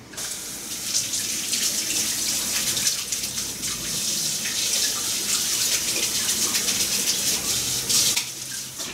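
Kitchen sink faucet running steadily, water splashing over hands being washed in the sink; it shuts off near the end.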